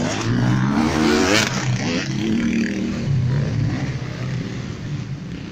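Enduro motorcycle engine revving hard as the bike accelerates past. Its pitch rises about a second in, then drops lower and fades as it pulls away.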